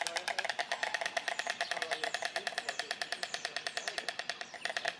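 White storks clattering their bills: a fast, even rattle of dry knocks, about a dozen a second. It dips briefly near the end, then comes back strong.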